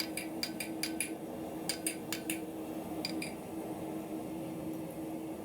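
Light hammer blows on a small bar of hot pure iron against an anvil while forging a square corner: about a dozen sharp metallic taps in three quick runs, stopping about three and a half seconds in. A steady low hum runs underneath.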